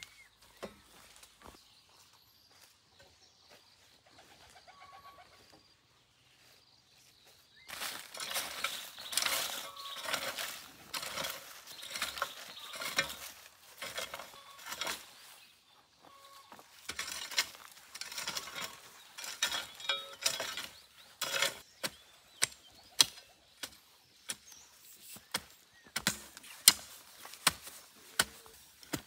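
Faint birdsong at first, then about eight seconds in a louder stretch of rustling and knocking begins. In the last several seconds it becomes a run of sharp chopping strikes, one or two a second.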